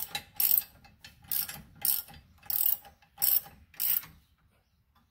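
Hand ratchet wrench clicking in short bursts, about six return strokes, as a bolt on a steering box skid plate is run in; it stops about four seconds in.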